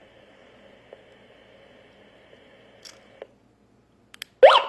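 A few faint clicks, then near the end a short electronic chirp rising quickly in pitch from the D1D9 wireless GSM alarm panel, just before it announces its arming.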